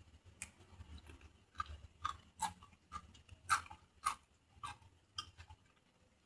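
Chewing crunchy raw vegetables, raw long bean (kacang panjang): a string of crisp crunches about twice a second that stops shortly before the end.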